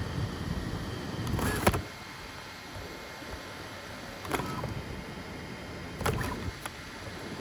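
FDM 3D printer running a print: a steady hum of stepper motors and fans, broken by three brief sharp sounds from quick movements of the printer. A low rumble eases off after the first of them.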